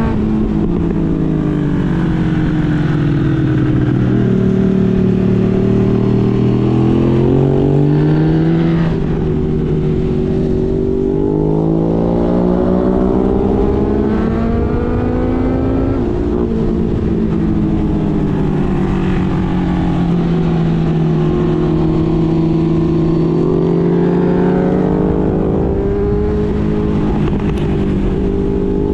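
Motorcycle engine heard from on board, its pitch repeatedly rising under acceleration and falling as the throttle is rolled off, over steady wind rush.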